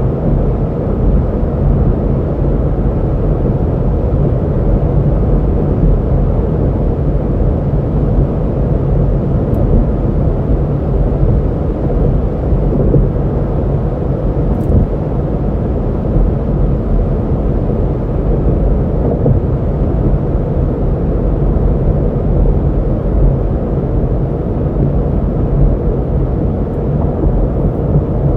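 Hyundai Veloster N's 2.0-litre turbocharged four-cylinder engine and exhaust running steadily at a constant cruise, mixed with road noise, heard from inside the cabin. The sound is a deep, even rumble with no revving.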